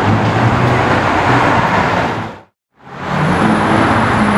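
Street traffic with a McLaren 720S's twin-turbo V8 running as it drives past. About halfway through, the sound fades out to a moment of silence, then traffic and engine noise fade back in.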